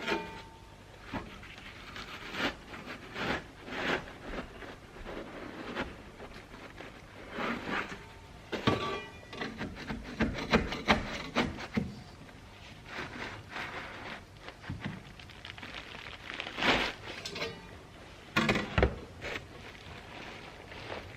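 Irregular scraping, rubbing and knocking as a hand tool works a large papery wasp nest loose from a wooden barn wall.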